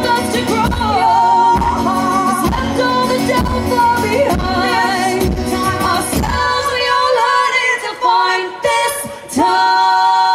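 Live folk-pop music: female voices singing in harmony over strummed guitar and a regular beat. The accompaniment falls away about seven seconds in, and the voices then hold one long note, unaccompanied, near the end.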